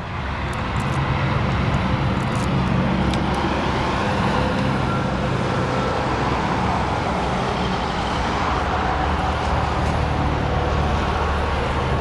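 A motor vehicle's engine running steadily, a low even hum with a few light clicks in the first three seconds.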